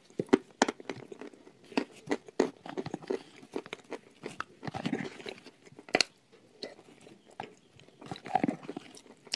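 Close-up crunching and chewing of a mouthful of edible chalk: many sharp, irregular crunches with short stretches of grinding chew between them.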